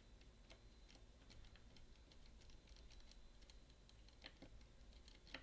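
Faint, scattered small clicks of a magnetic pick and tension tool working a MIWA magnetic camlock, with a couple of sharper ticks near the end.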